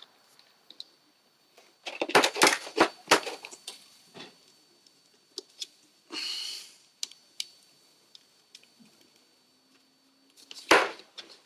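Scattered plastic clicks and knocks from a hardware music controller being handled and its buttons pressed, with a brief rustling scrape about six seconds in.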